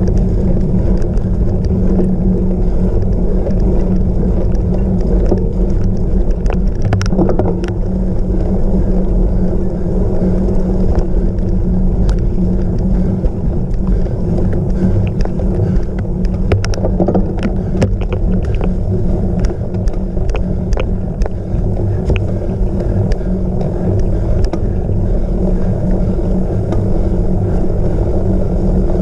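Wind rushing over the microphone of a camera riding on a cyclocross bike, with a steady low rumble from the tyres on rough ground. Clusters of sharp knocks and rattles from the bike come about a quarter of the way in and again just past the middle.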